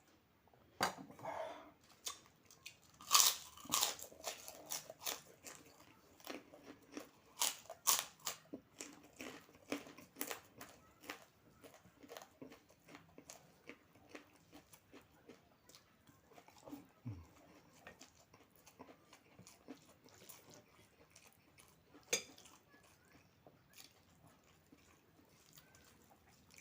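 Close-up eating sounds: a person biting and chewing crunchy food with many sharp crunches, loudest and most frequent in the first half, then slower, softer chewing.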